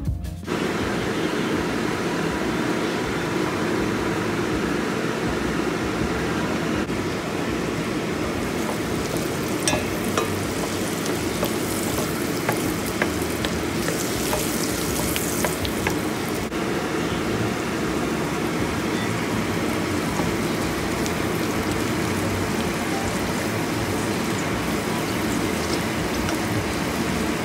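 Chopped garlic, green chilli and onion frying in oil in a pan: a steady sizzle, with scattered clicks and scrapes from the wooden spatula stirring it, most of them in the middle.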